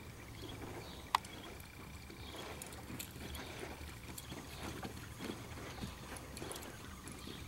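Hoofbeats of a reining horse moving and turning in soft arena dirt, irregular and muffled. A single sharp click about a second in.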